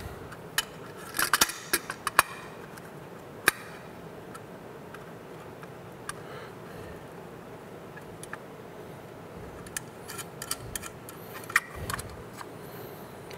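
Metal clips clicking and clinking against an aluminum caliper cover as it is worked onto a truck's brake caliper by hand: a cluster of sharp clicks in the first few seconds and again near the end, with a quieter stretch between.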